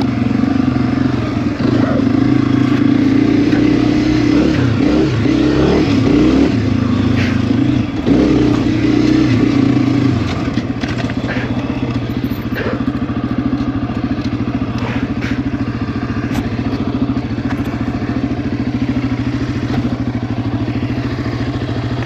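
Honda CRF250F's single-cylinder four-stroke engine running under a rider on a trail, its pitch wavering with the throttle for the first ten seconds, then settling to a steadier, lower-revving note.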